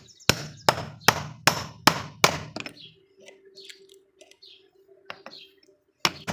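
Hammer blows on a pipe, driving a new ball bearing onto a washing machine motor's rotor shaft: six evenly spaced strikes in the first two and a half seconds, a faint steady hum, then more blows near the end.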